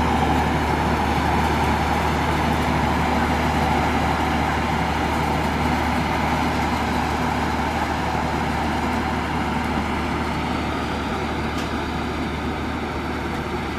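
Passenger express train moving along the station track: a steady rumble with a low hum that slowly fades.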